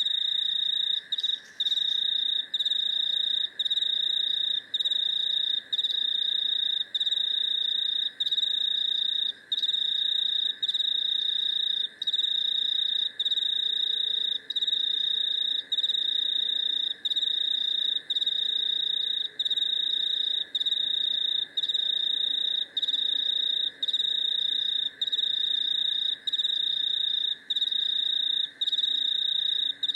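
Chorus of crickets and cicadas: a loud, high, steady trill broken by short gaps a little under a second apart, over a lower steady buzz.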